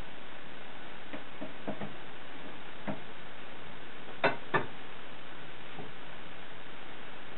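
A few faint ticks, then two sharp clicks about a quarter-second apart as a small metal communion chalice is handled and lifted from a wooden sideboard, over a steady hiss.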